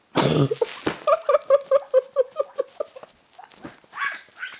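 A person's breath snorting loudly as the nose is held shut during a snore, then a quick run of squeaky, pitched pulses, about seven a second, lasting some two seconds before trailing off.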